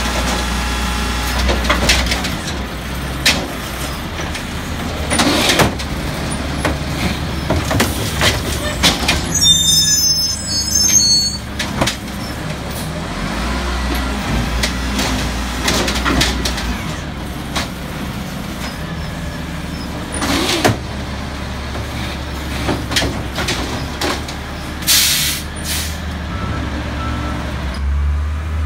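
Peterbilt garbage truck with an Amrep automated side-loader arm running at the curb while it empties carts: a steady low diesel hum with repeated knocks and bangs of carts being tipped and trash falling into the hopper. A brief high squeal comes about ten seconds in, and an air brake releases with a short hiss near the end.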